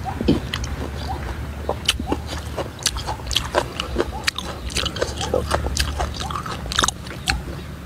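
Close-miked chewing of raw beef offal: a run of wet, irregular smacks and clicks from the mouth.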